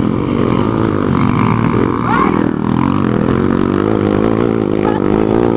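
Dirt-track racing motorcycle engines running hard, revving up and down with a wavering pitch.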